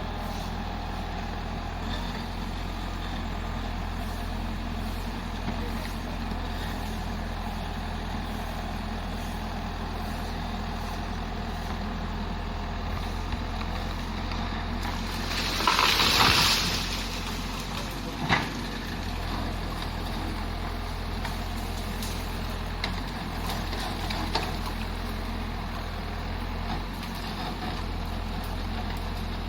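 BULL backhoe loader's diesel engine running steadily, with a loud hiss swelling and fading about halfway through and a sharp knock shortly after.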